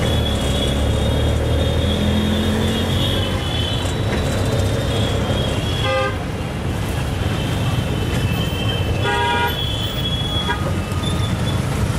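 Auto-rickshaw (tuk tuk) engine drone in street traffic, with horns tooting throughout. Two louder horn blasts come about halfway through and again a few seconds later.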